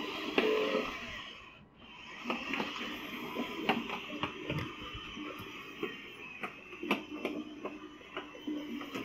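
Galaxy's Edge Droid Depot BB droid's drive motors whirring as it rolls and spins on carpet, with scattered clicks and rattles; the whirring drops off briefly about one and a half seconds in, then resumes. The motors are running normally again after their driver chip was replaced.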